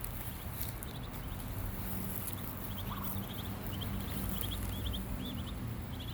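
Ducklings peeping in a run of short, high chirps, over a steady low rumble.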